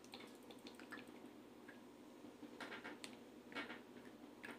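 Faint squishes from a squeeze bottle of Jufran banana ketchup being squeezed upside down, a few short ones in the second half. The thick sauce is stuck and hardly comes out.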